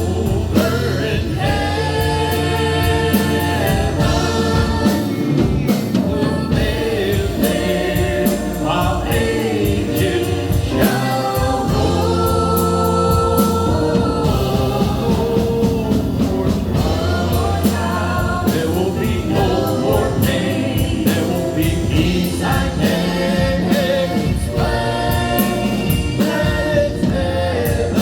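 Gospel-style song with sung vocals and backing harmonies over a steady band accompaniment with bass and drums.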